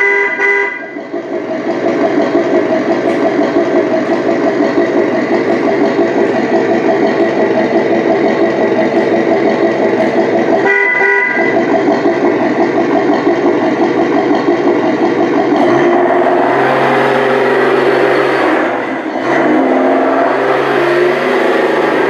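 Simulated engine sound from a Tamiya Tundra Highlift radio-controlled pickup's sound unit, running steadily with a short horn toot twice, once right at the start and again about halfway through. The engine note drops and changes for a few seconds near the end.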